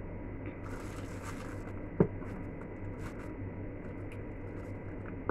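Handling of a meal's paper food wrapper and plastic cups: a brief paper rustle and small clicks, with one sharp knock about two seconds in, over a steady low hum.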